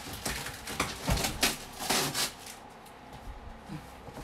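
Cardboard box and packaging being handled and opened: a run of scrapes and rustles over the first two and a half seconds or so, then quieter.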